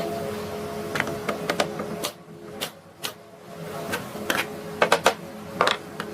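A steady machine hum that cuts out about two seconds in, followed by a run of sharp, irregular knocks and clicks.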